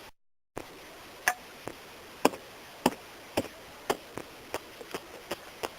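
A brief cut to dead silence, then a series of sharp taps about half a second apart that come quicker near the end, about three a second.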